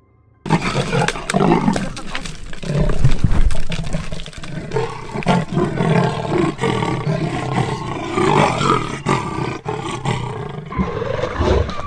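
Two leopards fighting, with loud snarls that start abruptly about half a second in and go on without a break.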